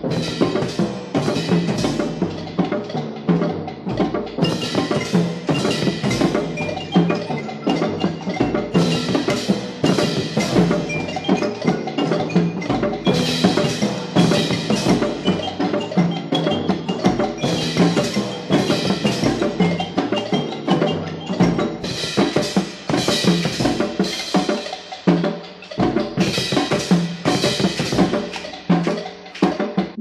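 Instrumental section of a percussion-driven Argentine folk 'danza guerrera' (war dance): drums and wood-block and mallet strikes beating out a steady rhythm under the ensemble.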